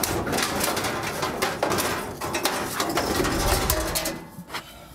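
Scrap iron clattering and scraping as a metal pipe is pushed in among a load of old iron in the back of a van, with many quick knocks; it dies down near the end.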